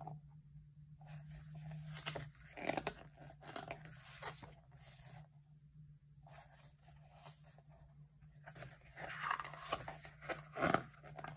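Packaging being handled and torn open by hand: irregular rustling and crinkling with a few sharper crackles, over a faint steady low hum.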